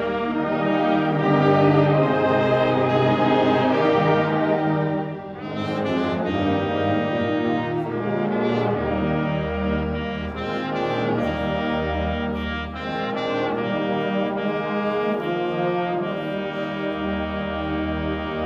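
Full high school concert band playing, with brass prominent in sustained chords. The sound drops briefly about five seconds in, then the band comes back in with more accented, rhythmic playing.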